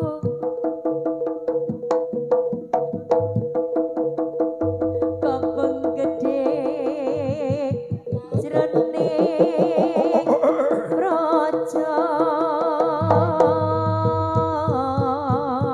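Live Javanese jaranan music: rapid, sharp drum strokes under sustained pitched tones, with a wavering melodic line joining about five seconds in.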